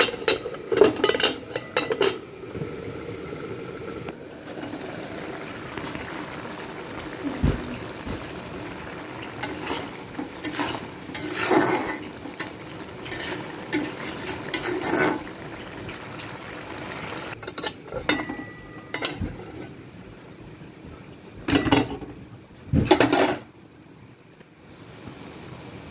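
A metal lid clatters off an aluminium kadai, then a spatula stirs and scrapes through a simmering curry over a steady low sizzle. The scraping comes in several spells, loudest near the end.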